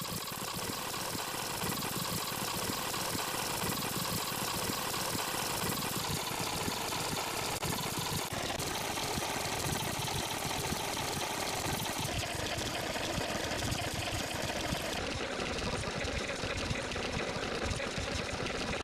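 Fast-forward sound effect: a dense, fast-fluttering whir with no clear pitch, running steadily and ending abruptly.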